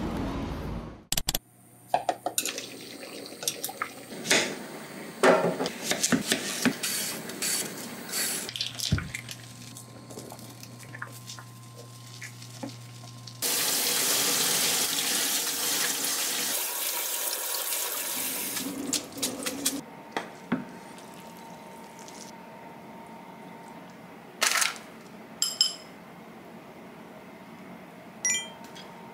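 Clatter and knocks of kitchen pots and utensils. Then a kitchen tap runs into the sink for about five seconds while a saucepan is drained into a colander, and a few light clinks of dishes come near the end.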